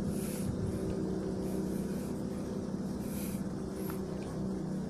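A steady low mechanical hum, like a running motor, with two short hissing rustles, one just after the start and one about three seconds in.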